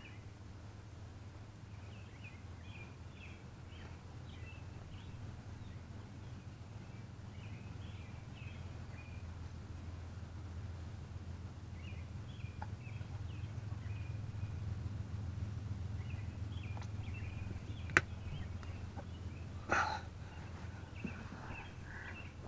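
Small birds chirping again and again over a steady low hum. A single sharp click comes about 18 seconds in, and a short scuffing sound follows about two seconds later.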